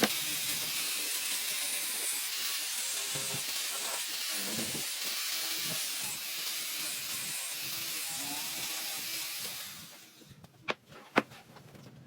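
A steady hiss that runs for almost ten seconds and then cuts off, followed by two sharp clicks.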